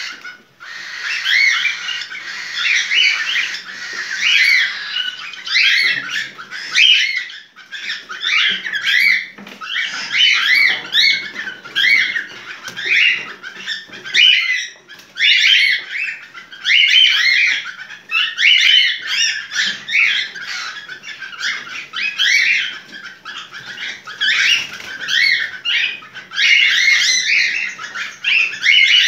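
Cockatiel calling in breeding condition (in heat): a continuous, rapid stream of chirps, whistles and warbling chatter with only brief pauses.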